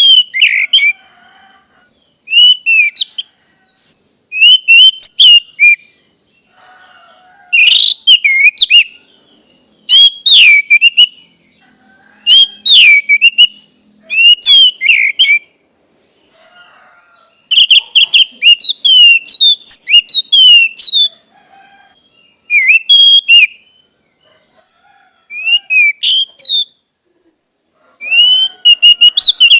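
Orange-headed thrush (anis merah) singing loud, clear whistled phrases of sliding notes in repeated bursts with short pauses between. A steady high hiss runs underneath and stops about four-fifths of the way through.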